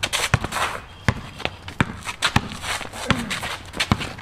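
Basketball dribbled on a concrete court, sharp bounces at an uneven pace, with sneakers stepping and scuffing on the concrete between them.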